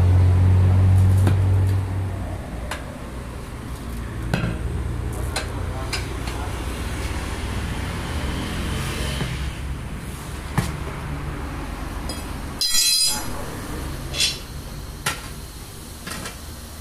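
Steel tyre irons knocking and clinking against a tractor wheel's steel rim and the floor while the tyre bead is worked: scattered sharp metallic knocks, with a louder rattling clatter near the end. A low hum runs under the first two seconds, then stops.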